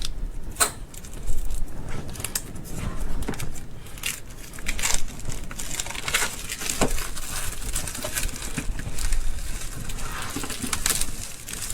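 Product packaging being handled and opened: irregular crinkling and rustling with scattered clicks and light knocks.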